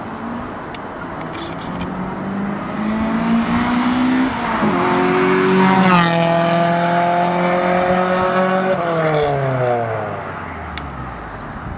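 Toyota Celica's 2.0-litre four-cylinder 3S-GE Beams engine with a decat and Magnaflow exhaust, raspy, accelerating hard past: the revs climb, drop at a shift from 2nd to 3rd gear about halfway, climb again, then the note falls away as the car pulls off.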